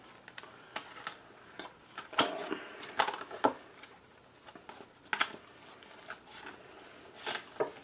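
A stiff laminated fold-out pamphlet being unfolded and handled, making scattered crinkles and clicks.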